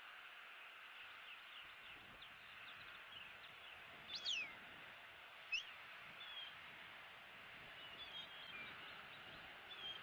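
Small wild birds chirping and calling over a faint steady hiss, with two louder, sharp high calls about four seconds in and again a second later.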